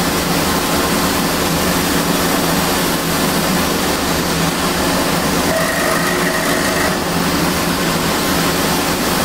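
Small band saw running steadily while a wooden dowel is fed into the blade and cut to length for axles. A faint higher tone joins the motor noise for about a second and a half near the middle.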